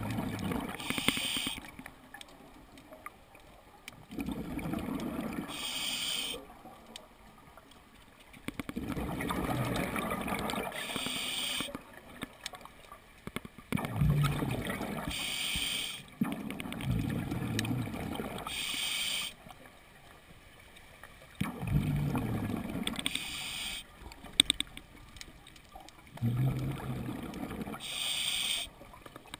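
Open-circuit scuba regulator breathing underwater, in a slow regular cycle: each exhalation sends out about two seconds of rumbling, gurgling bubbles, and each inhalation brings a short hiss of air through the regulator. The cycle repeats about every five seconds.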